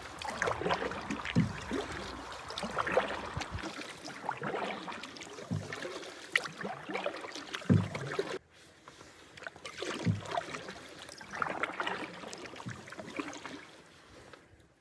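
Canoe paddle strokes on calm water: the blade dipping, pulling and dripping, with a soft low thud at each stroke every second or two. The sound drops suddenly about eight seconds in and goes on more quietly.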